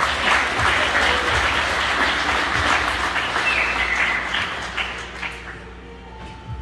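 Crowd applauding in a large gymnasium, the clapping dying away about five seconds in.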